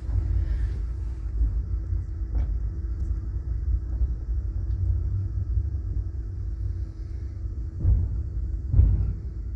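Low rumble inside a passenger train car, with a steady hum over it and a couple of short knocks near the end.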